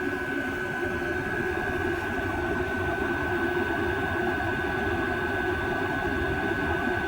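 Steady whir of a Chinese diesel air heater and an electric fan blowing hot air, with a constant high whine over a low hum.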